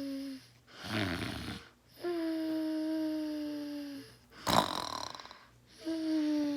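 Snoring: a whistling tone held for about two seconds on one breath, sinking slightly in pitch, alternating with a short, harsh rasping breath. The cycle repeats roughly every four seconds, and the loudest moment is a sharp rasp about four and a half seconds in.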